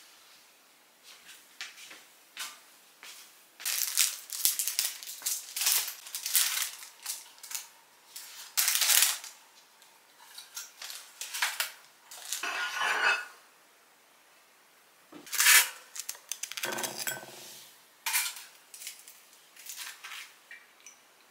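Kitchen handling sounds at a two-slot pop-up toaster: a string of clicks, rustles and clatters as bread slices go into the slots and the toast is lifted onto a ceramic plate with metal tongs. One sharp, loud clack comes a little past the middle, followed by a short buzzy rasp.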